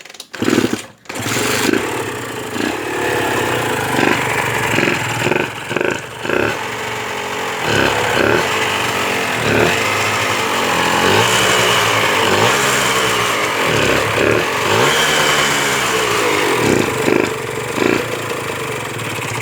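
Honda NSR150RR's 150 cc two-stroke single-cylinder engine starting, then revved in repeated throttle blips and cut off abruptly near the end. The mechanic judges the left balance-shaft bearing and the crankshaft side bearings to be noisy and the balance-shaft seal to be leaking after long storage.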